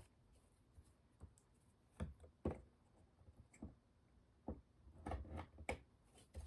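Faint, scattered clicks and light taps of small objects being handled and set down on a workbench, about a dozen separate ticks with a small cluster about five seconds in.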